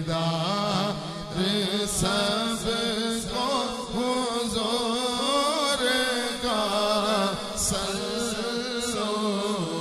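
A male naat reciter chanting a devotional naat in praise of the Prophet, in long melodic held lines.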